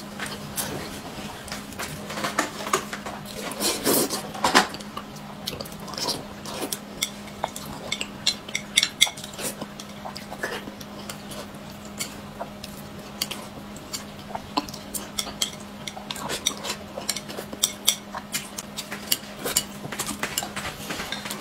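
Chopsticks clicking and scraping against a ceramic noodle bowl in many short, irregular clicks, while a person slurps and chews noodles. A low steady hum runs underneath.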